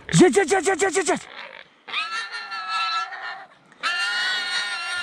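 A Russo-European laika barking at a boar: a fast run of about eight barks, then two long drawn-out howling bays, each over a second long.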